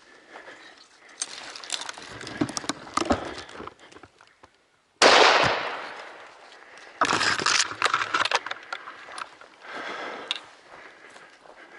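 A single rifle shot about five seconds in, sudden and loud and dying away over a second or so, with rustling and knocks before and after it.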